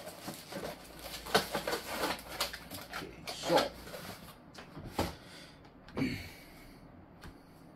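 Clear plastic bag of small screws crinkling and rattling as it is handled, with a short series of crackles over the first few seconds, then a sharp click about five seconds in as it is put down on a desk.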